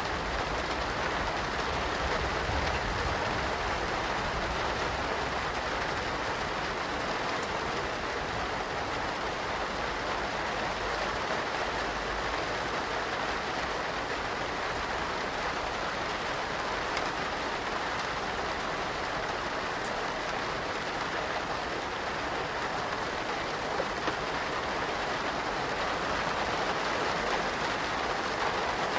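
Steady medium rain falling, an even hiss of drops with no let-up.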